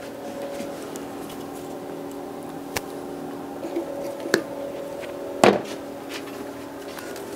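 Metal parts of a Honda J35 V6 cylinder head being handled during teardown: a few sharp clicks and knocks, the loudest about five and a half seconds in, over a steady hum.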